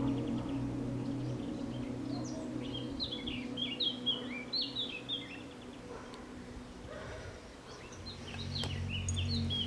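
Songbirds chirping and singing in short, quick notes, busiest in two spells, over a low steady drone that fades out about halfway through and comes back near the end.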